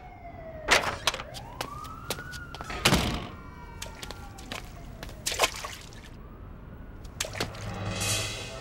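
Soundtrack of an animated cartoon: siren-like gliding tones, one sliding down and one rising then falling, with a few sharp knocks or hits at irregular intervals.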